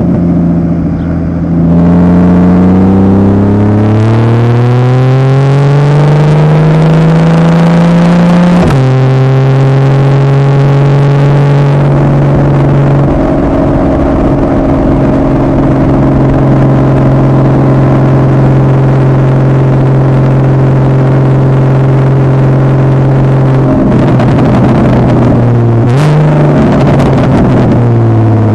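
2015 Porsche Boxster 981's 2.7-litre flat-six through a Fabspeed Maxflo aftermarket exhaust, pulling up through a gear with a rising note. The note drops sharply as the PDK gearbox upshifts about nine seconds in, then holds a steady cruise. Near the end there is a quick rev blip, and the pitch starts to fall as the car slows.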